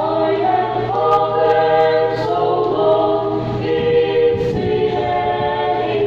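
A mixed vocal quartet, two men and two women, singing a Christian song in harmony into handheld microphones, with a steady low hum underneath.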